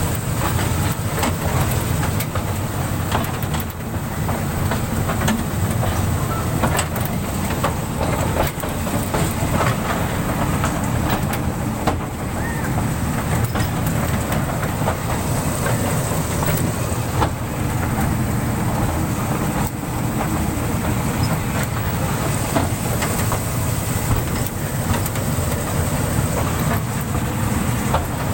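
Toy train running along its track, heard from an open carriage: a steady low rumble with scattered sharp clicks of the wheels and couplings.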